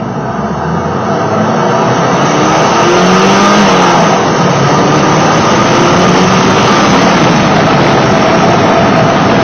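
Porsche 968's four-cylinder engine with a ProCharger D1R centrifugal supercharger, heard from under the hood under acceleration. The engine note climbs in pitch and grows louder over the first few seconds, then holds loud and steady with a high, even tone.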